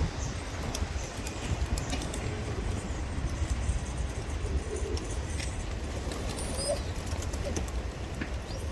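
A flock of pigeons, with occasional cooing and scattered short clicks and flutters, over a steady low rumble.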